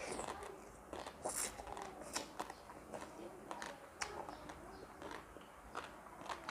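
A person chewing and crunching food close to the microphone: irregular soft crunches, smacks and small clicks.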